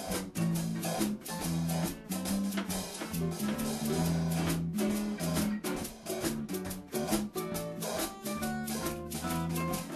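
Background music: a guitar-led tune with drums keeping a steady beat.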